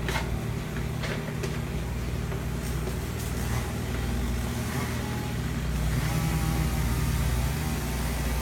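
A motor vehicle's engine running steadily with a low hum, growing a little louder about six seconds in, with a few sharp clicks near the start.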